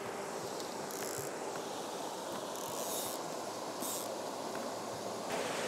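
River water rushing steadily over a rocky riffle, with a few short high rustling hisses about one, three and four seconds in.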